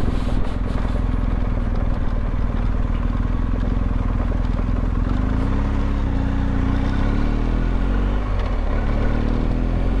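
Motorcycle engine running steadily as the bike is ridden, its note rising slightly in pitch about halfway through.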